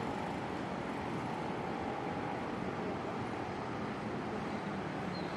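Steady road traffic noise from a busy street, with cars and motorbikes passing. A faint held tone sits over it for the first couple of seconds.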